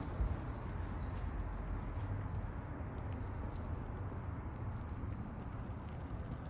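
Flames burning a plastic-cased cable converter box and its circuit board: a steady rushing with faint scattered crackles, under a low wind rumble on the microphone. No capacitor pops in this stretch.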